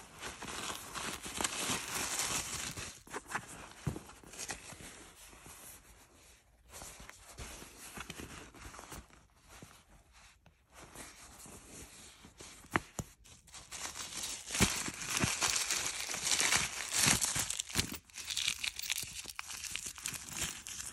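Tissue paper rustling and crinkling as a leather handbag and its wrapping are handled, with a few sharp clicks and knocks. It quietens for a few seconds in the middle, then grows busier again.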